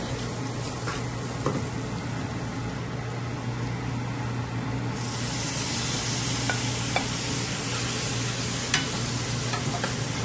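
Onions and spices frying in oil, the sizzle getting louder about five seconds in as chopped tomatoes go into the hot pan. A spatula stirs and scrapes with a few sharp clicks against the nonstick pan.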